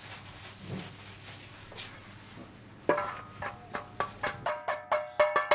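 Stainless steel mixing bowl knocked repeatedly against the mixer bowl to tip sea salt out, each knock leaving a metallic ring, about four or five a second from around three seconds in; before that a soft rustle of salt sliding in the bowl.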